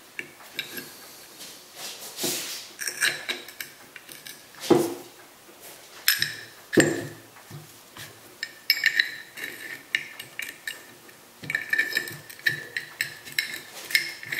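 Steel parts of a lathe top slide being handled and worked apart on a tabletop: irregular metal clinks, taps and a scrape. There are two louder knocks about five and seven seconds in, and a run of quick light clicks near the end as the feed screw with its ball handle is worked.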